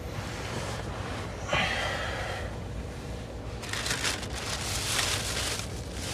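Thin plastic grocery bag crinkling and rustling as hands rummage through vegetables in it, thick from a little past halfway in, after a shorter rustle near the start; a steady low car-interior rumble lies underneath.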